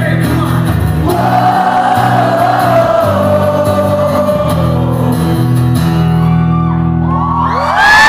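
Live acoustic band music: singing over acoustic guitar with sustained low notes underneath. Near the end the music stops and the crowd breaks into loud cheering and whooping.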